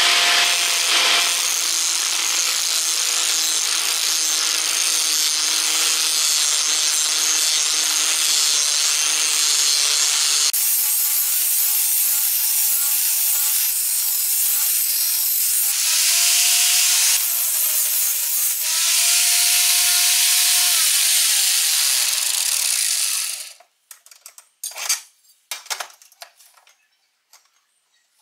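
Harbor Freight 4.5-inch angle grinder grinding the edge of a steel lawn mower blade: a loud steady grinding hiss over the motor's whine, which dips in pitch a few times as the wheel is pressed into the metal. The grinding cuts off about 23 seconds in, followed by a few light knocks.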